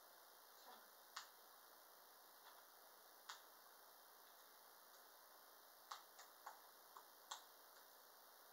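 Near silence broken by faint, irregularly spaced clicks, about nine of them, with a cluster of five in the second half.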